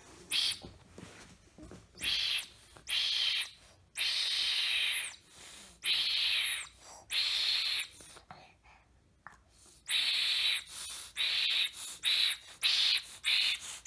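A person making about a dozen loud, hissy, breathy huffs, each under a second, at irregular intervals with a short pause partway through.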